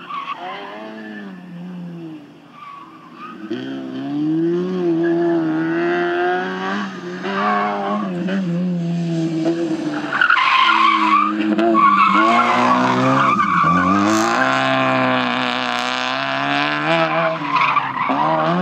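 Fiat Cinquecento rally car's small petrol engine revving hard, rising and falling again and again as the driver accelerates, lifts and changes gear, faint at first and getting louder as the car comes close, with tyre squeal through the turns.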